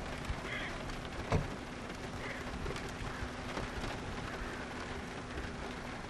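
Steady outdoor background noise, a hiss with a low rumble, and a single knock about a second and a half in.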